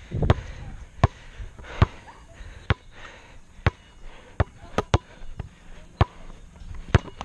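Basketball dribbled on an asphalt court: a steady run of sharp bounces, a little under one a second, about ten in all.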